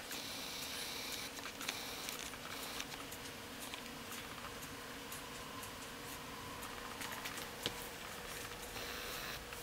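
Faint rustling and scratching as a cat rolls on a hard floor and paws at a rug, with a couple of light clicks, over a faint steady hum.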